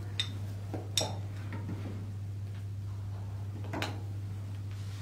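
A few light clicks and knocks as small plastic paint jars and a paintbrush are handled on a tabletop, the sharpest about a second in and another near four seconds in, over a steady low hum.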